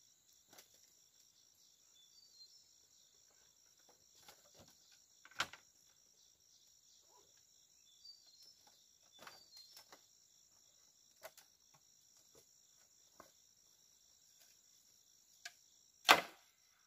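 A steady high-pitched insect chorus with scattered light knocks and taps; two sharp, louder knocks stand out, one about five seconds in and a stronger one near the end.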